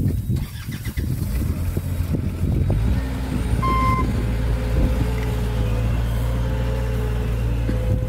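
Knocking and handling noises, then a motor vehicle's engine starts running with a steady low hum from a little under three seconds in. A short beep sounds about a second after the engine starts.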